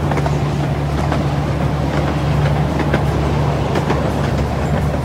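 Small park train running along its track: a steady low hum with scattered clicks from the wheels on the rails.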